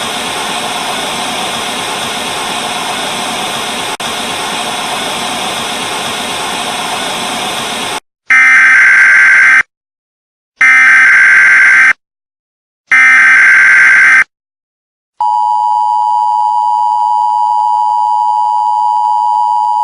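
Steady static hiss for about eight seconds, then three loud Emergency Alert System header bursts (SAME data tones), each a little over a second long. After a short gap the steady EAS two-tone attention signal begins and holds.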